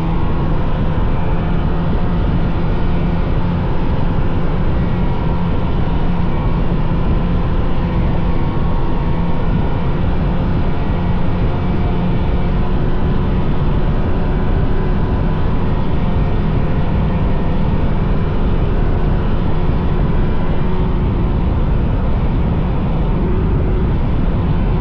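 Vintage snowmobile's two-stroke engine running steadily at cruising speed on the trail.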